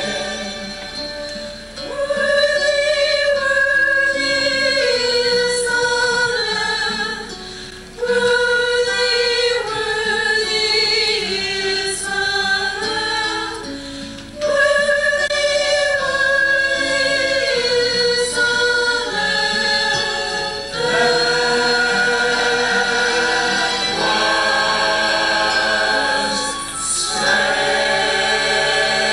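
Mixed-voice church choir singing. The phrases swell and fade, and each new one comes in strongly after a short dip.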